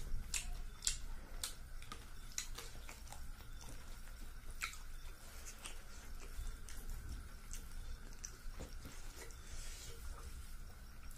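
Fingers mixing rice with fish curry gravy by hand: soft, wet squelching and irregular small clicks, several a second at first and sparser later.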